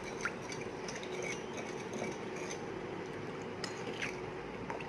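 A spoon stirring soap-nut dishwashing powder into water in a bowl to make a paste, with a soft wet swishing and scattered light clinks of the spoon against the bowl.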